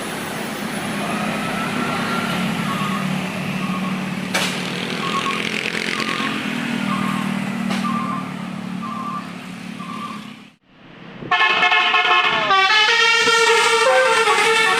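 Tour bus engine labouring up the climb, with a short beep repeating a little faster than once a second. About eleven seconds in, after a brief drop-out, a loud telolet horn plays a melody of shifting stacked tones.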